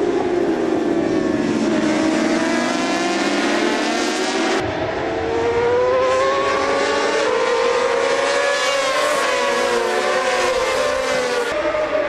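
Several racing motorcycle engines at high revs, overlapping, their pitches rising and falling as the bikes accelerate and shift through the corners. The sound changes abruptly about halfway through, at a cut to another shot of the field.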